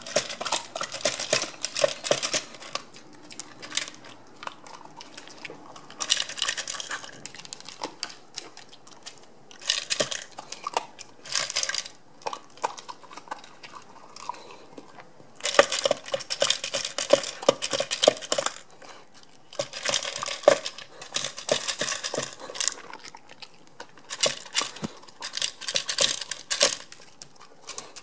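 Mame shiba eating dry kibble from a hard plastic Fun Feeder Mini slow-feeder bowl: pellets clattering and clicking against the plastic ridges as the dog noses and bites through them. It comes in spells of rapid clicking with short quieter pauses between.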